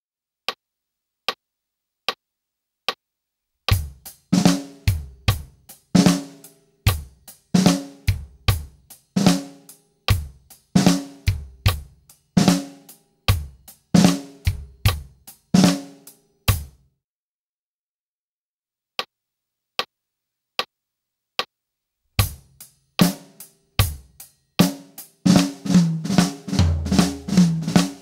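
Drum kit playing the drag ruff rudiment: a drag of two quick grace strokes before a single stroke, worked into a beat with bass drum, snare and hi-hat. Four even clicks count it in. Near the middle the playing stops, four more clicks count in, and a second drag-ruff pattern starts.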